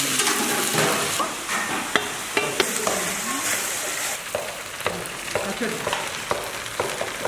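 Food sizzling and frying in a pan, with a utensil stirring it and clacking against the pan every second or so.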